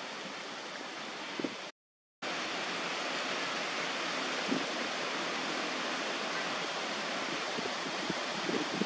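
Steady outdoor wind noise, a hiss with no distinct events, cutting out to silence for about half a second near the two-second mark and then going on a little louder.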